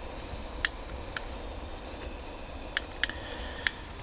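Firewood burning in a small fire pit: a few sharp crackling pops, about five, spaced irregularly, over a steady low background hiss.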